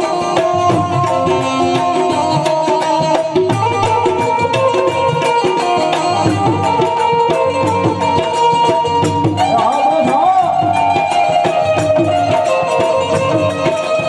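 Harmonium and tabla playing Gujarati devotional folk music: held reedy harmonium notes over a steady tabla rhythm.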